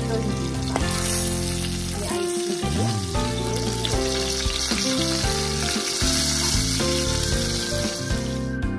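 Ribeye steak sizzling in butter in a cast-iron skillet as it is turned with tongs. The sizzle cuts off abruptly near the end, and background music plays underneath.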